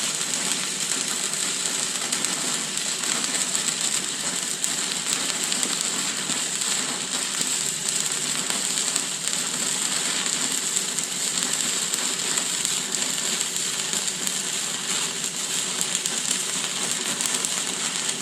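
Stick-welding arc burning steadily on a 6013 rod, a continuous crackling sizzle as the root pass is laid.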